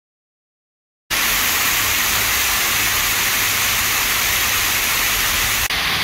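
Silence for about a second, then a steady rush of water falling down a stepped cascade fountain, which starts suddenly.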